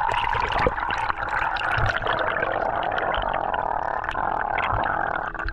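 Water heard through an action camera at and below the surface: a steady rushing, bubbling wash with many small crackling clicks as a snorkeler dives beside it.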